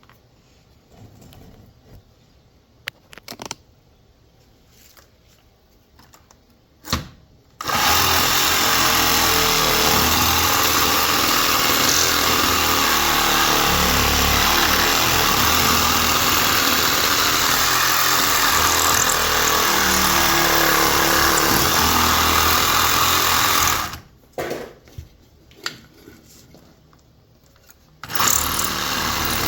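Handheld power tool running loudly for about sixteen seconds, cutting into an electric motor, after a few light clicks and knocks; it stops, then starts again near the end.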